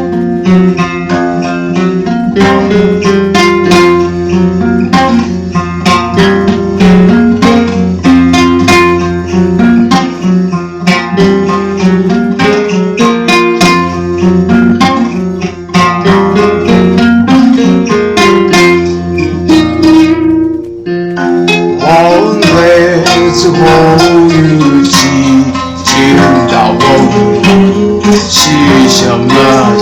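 Dark folk music: densely plucked acoustic guitar over a steady low drone. About two-thirds of the way in, a wavering, gliding higher line joins.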